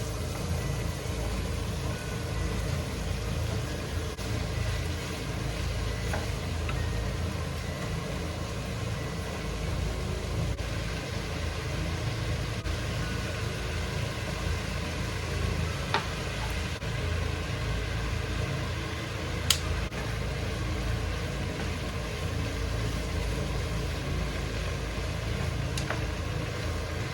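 Steady low machine hum with faint steady tones above it. A sharp click cuts through it about two-thirds of the way in, and a louder one a few seconds later.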